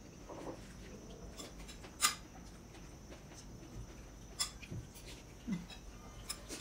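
Quiet eating sounds: a metal spoon clicking against small glass soup bowls several times, the sharpest click about two seconds in, with soft mouth sounds of eating between the clicks.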